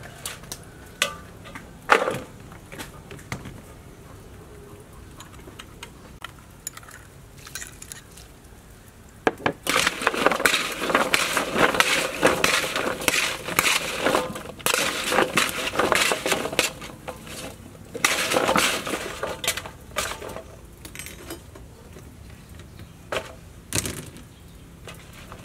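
Fresh asparagus spears being snapped by hand over a steel bowl: a quick run of crisp cracks from about ten to twenty seconds in, with a few single knocks before and after.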